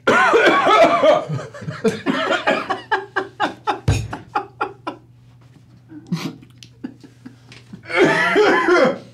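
Men laughing hard: a long fit at the start, a run of quick "ha" pulses, and another burst near the end. A dull thump about four seconds in.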